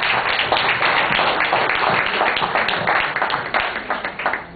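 Audience applauding, many hands clapping steadily; the applause dies away near the end.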